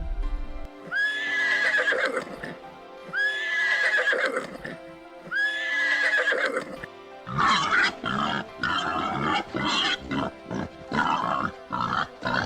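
An animal calling three times, each call a short rise in pitch that then holds, followed about seven seconds in by a quick run of short choppy calls, over soft background music.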